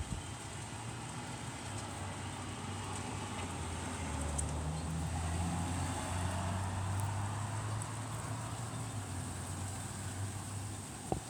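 Motor vehicle engine running, a low hum that grows louder for a few seconds and then fades, as a car passes or idles close by, over steady outdoor noise.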